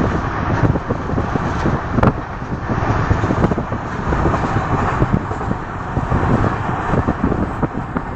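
A moving vehicle heard from inside at its window: a steady low rumble and rushing noise, with frequent small knocks and rattles running through it.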